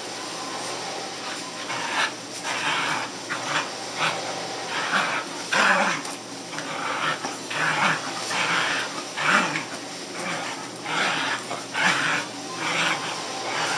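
A curly-coated black dog making short, breathy sounds in a run, about one a second, starting about two seconds in, while tugging on a rope toy.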